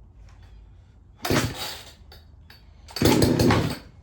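Two-stroke chainsaw being pull-started: two pulls on the starter cord about a second and a half apart, each bringing a short burst of engine noise under a second long that does not keep running. The owner thinks the saw's carburetor needs tuning.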